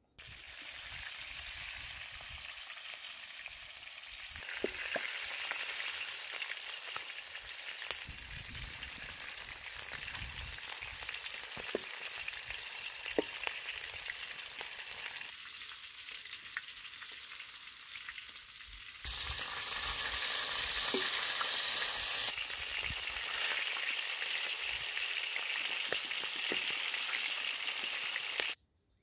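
Whole quails sizzling as they fry in a wide black pan, with a wooden spatula scraping and tapping against the pan as they are turned. The sizzle gets louder about two-thirds of the way through.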